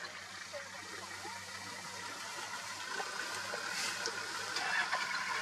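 Quiet outdoor ambience: a steady hiss with a low, even hum beneath it, a few faint short chirps and small clicks.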